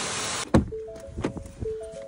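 A steady rushing hiss from a dog-grooming blow dryer cuts off abruptly about a quarter of the way in. Background music with a few held notes follows, with several sharp knocks.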